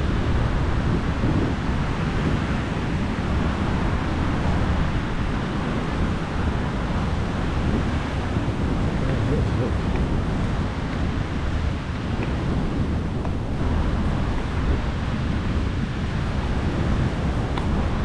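Wind buffeting the microphone over the steady wash of surf on a sandy beach.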